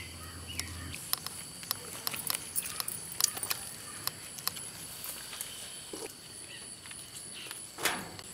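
Crisp clicks and crackles of people eating crunchy fried chicken by hand from leaf plates, thickest in the first half and with a louder crackle near the end, over a steady high insect buzz.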